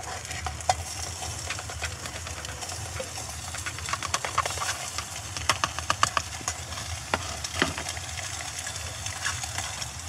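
Chopped salmon sizzling as it fries in a small titanium pot over a gas canister stove's burner, a steady hiss. A utensil clicks and scrapes against the pot now and then as it is stirred, most often in the middle of the stretch.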